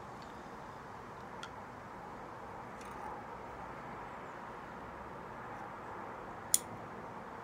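Quiet puffing on a tobacco pipe: a few soft mouth clicks and one sharp click about six and a half seconds in, over a steady low background hiss.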